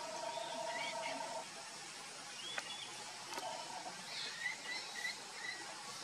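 Outdoor ambience with small birds chirping on and off. A steady tone runs for the first second and a half and returns briefly about halfway through, and there is a single sharp click near the middle.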